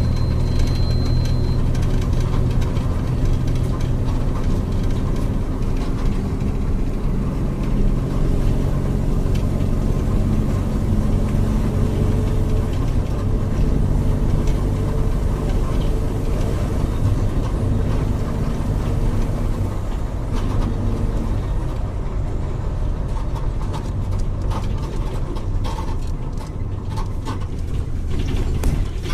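Volkswagen 17.230 OD bus chassis's diesel engine running steadily, its pitch wandering slightly up and down as the revs change, then getting a little quieter near the end.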